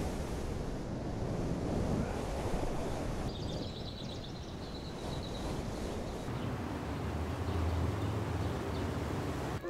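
Steady rushing wind on the microphone, swelling toward the end, with a small bird chirping a few times about three to six seconds in.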